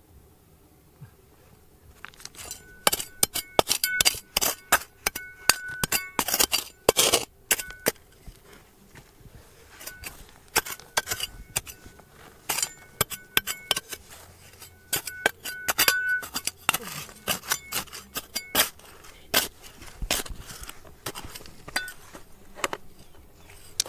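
Rapid, irregular metallic clinks and scrapes, a metal tool striking and scraping stones. They start about two seconds in, and many strikes ring briefly at the same pitch.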